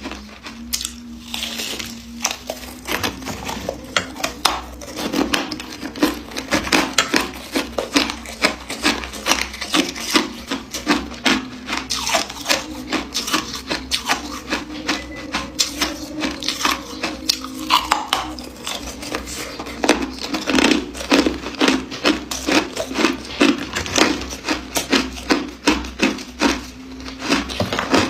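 Ice being chewed and crunched close to the microphone, a rapid, irregular run of sharp cracking crunches.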